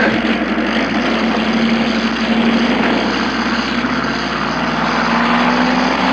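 A loud engine running steadily, starting abruptly at a cut.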